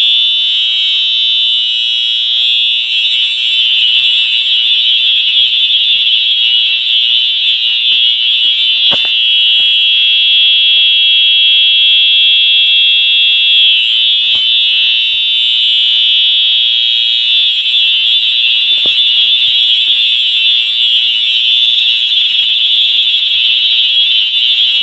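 Electronic fire alarm horn sounding a loud, continuous, unbroken high-pitched tone during a system test.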